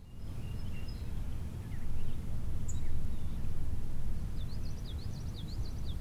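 Outdoor nature ambience with a low rumble and small birds chirping in the background. A fast run of short, high, down-slurred chirps comes near the end.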